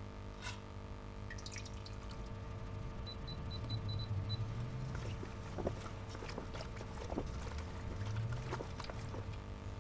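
A glass lid is lifted off a steel pot with a click, and a few seconds in there is a quick run of six short electronic beeps. Then a spoon stirs the potato-and-barley mash after its 52 °C rest, with wet sloshing and splashing, over a steady low hum.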